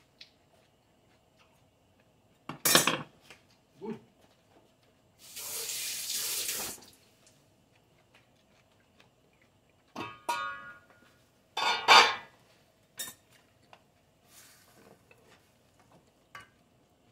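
Enamelware cooking pot and its metal lid clattering and knocking as they are handled, with one clank that rings briefly. About a second and a half of steady hissing falls between the clanks.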